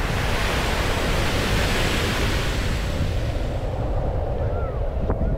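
Wind buffeting the microphone over waves washing against a rock breakwater. The hiss swells and fades in the middle.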